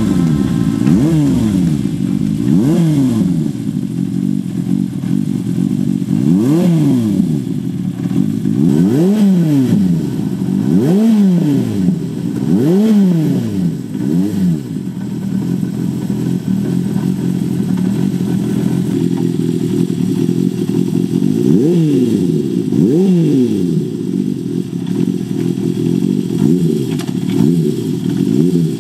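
Honda CB400Four inline-four engine with a short aftermarket exhaust pipe, idling and blipped repeatedly so the revs rise and fall. There is a run of blips in the first half, then a steady idle, then two more blips later on.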